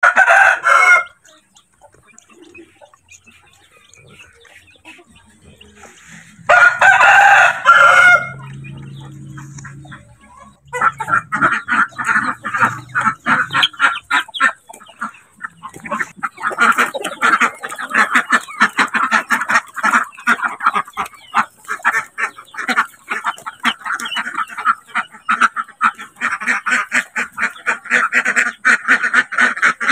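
A rooster crows twice: once at the very start, then in one call of about a second and a half around seven seconds in. From about eleven seconds on, a flock of domestic ducks and chickens calls without a break, with many short quacks and clucks overlapping.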